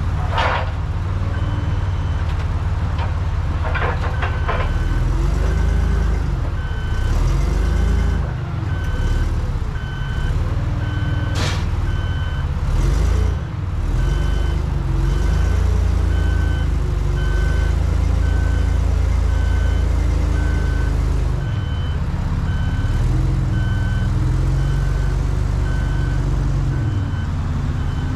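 Propane Hyster forklift engine running and revving as it lifts and carries a heavy cable reel, with its reversing alarm beeping steadily in an even rhythm. A few sharp knocks come through, the loudest about eleven seconds in.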